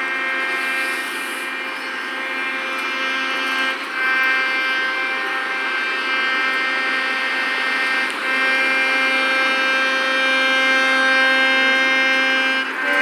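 Small piano accordion playing long held chords, changing chord about every four seconds.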